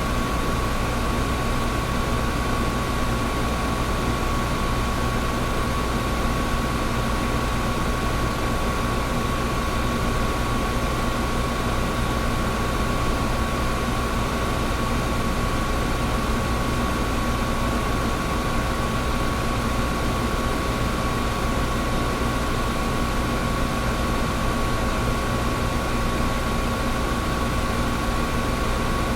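Air conditioner running steadily: a constant rush of air over a low rumble, with a steady whine pitched at about 1 kHz.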